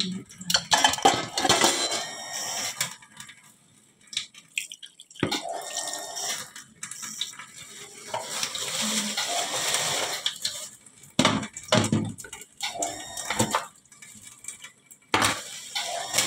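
Tap water running into a stainless-steel sink and splashing as things are rinsed under it by hand, the flow sound rising and falling. A few knocks come through it.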